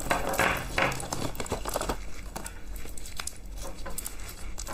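A clear plastic bag crinkling as wrapped ball lollipops are pulled out of it. The crinkling is densest for the first two seconds, then eases into lighter rustles and clicks of the plastic wrappers.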